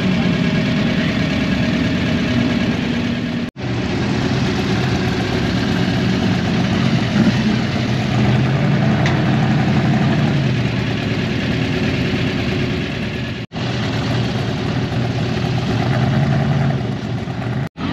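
Drag-race street car engines idling loudly, their pitch shifting a little now and then.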